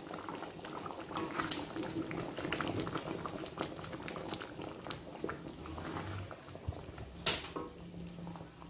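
Chicken kurma in coconut milk bubbling at a boil in a pot, crackling with small pops as it is stirred with a wooden spatula. A single sharp knock about seven seconds in.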